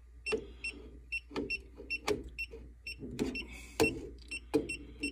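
Klein Tools ET310 circuit breaker finder receiver beeping in short, high, evenly repeated pips, several a second, as it is run down the row of breakers during its learning scan. Sharp knocks and rubbing come from the tool's tip passing against the breaker handles.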